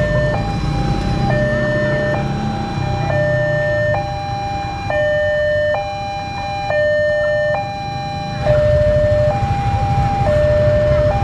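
Railroad level-crossing warning alarm sounding its electronic two-tone signal, a lower and a higher tone alternating about once a second, while the barrier closes for an approaching train. About eight seconds in, a low rumble rises beneath it.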